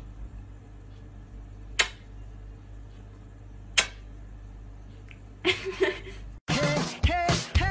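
Two sharp single clicks about two seconds apart over a steady low hum. Near the end the sound cuts out briefly and gives way to louder pitched sound that bends up and down.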